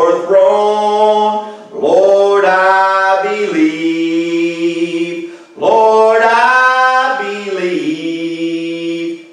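A man singing a slow gospel song at the microphone, in long held notes, two drawn-out phrases with a short breath between them.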